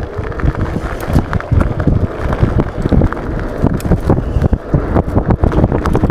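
Wind buffeting the microphone of a 500 W 48 V electric scooter riding over a bumpy dirt path, with many small knocks and rattles as the scooter jolts over the ground. A faint electric motor whine comes in near the end.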